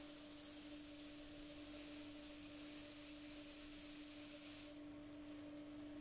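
Iwata Eclipse airbrush spraying black paint, a steady hiss of air and paint that cuts off suddenly about three-quarters of the way through. A steady low hum continues underneath.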